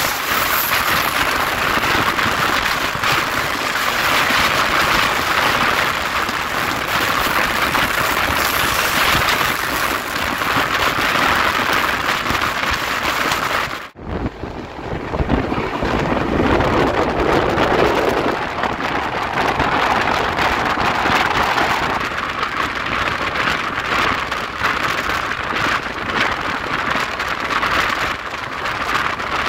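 Steady rushing noise of an express train running at speed, heard from on board. About halfway through it cuts off abruptly and at once starts again with a different tone.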